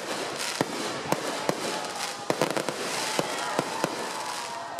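Aerial fireworks going off: a quick series of about a dozen sharp bangs over continuous crackling and fizzing of bursting shells.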